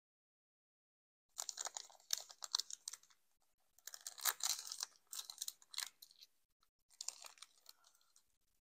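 Foil Pokémon card booster pack wrapper crinkling and crackling as it is handled and worked open by hand. It starts about a second in and comes in three spells of dense, sharp crackle.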